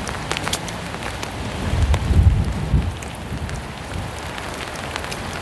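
Steady rain, with sharp ticks of drops landing close to the microphone. A low rumble rises about two seconds in and fades a second or so later, the loudest part.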